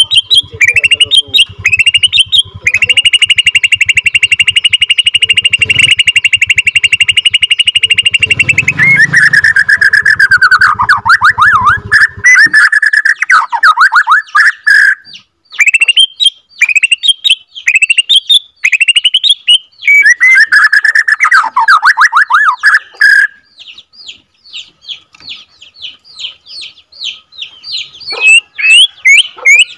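Bornean white-rumped shama singing loudly: a long unbroken trill held on one pitch for about six seconds (the long 'roll'), then rapid falling trills and varied whistled phrases. About three quarters through it turns to softer quick repeated notes, then is loud again near the end.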